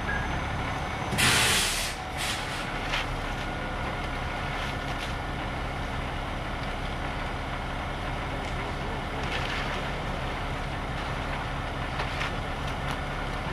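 A heavy truck's air brakes let out one sharp hiss about a second in, over the steady running of the truck's engine. A few faint scrapes of rakes and shovels working wet concrete follow.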